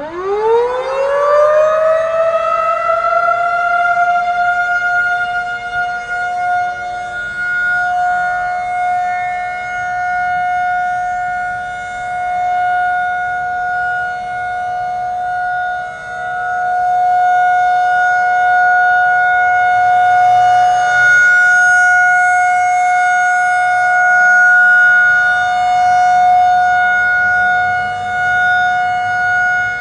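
Outdoor tornado warning siren winding up to full pitch over about two seconds, then holding one steady tone whose loudness swells and fades slowly. It is a scheduled monthly test.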